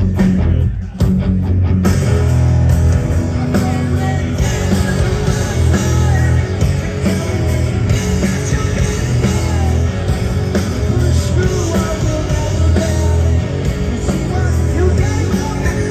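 Post-hardcore band playing live, heard from the crowd: loud distorted electric guitars, bass and drums. A choppy stop-start riff opens, and the full band comes in hard about two seconds in.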